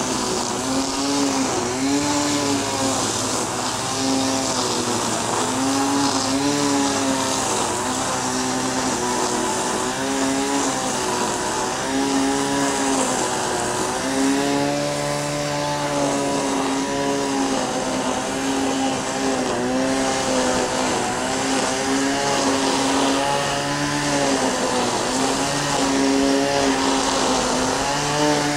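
Helicopter flying overhead: a steady rotor and engine drone whose pitch wavers gently up and down.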